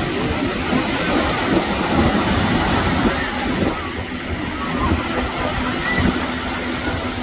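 Beach wind rumbling on the microphone over the wash of small waves, a steady noise with irregular low buffeting.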